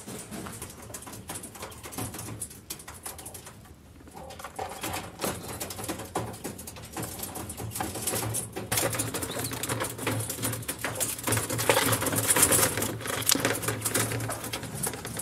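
Coturnix quail in a wire cage: soft bird calls with scratching and fluttering, getting busier and louder in the second half.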